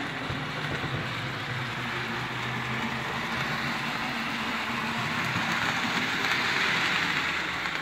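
Jouef HO-scale 141 steam locomotive model running along the layout track: a steady electric-motor hum with the rumble of its wheels on the rails, growing louder about six seconds in.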